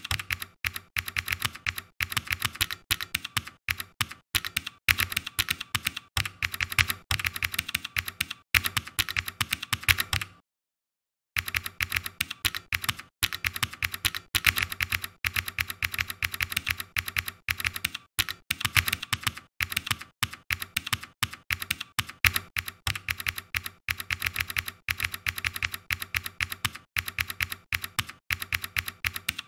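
Fast typing on a computer keyboard: quick, uneven runs of key clicks, which stop dead for about a second roughly ten seconds in.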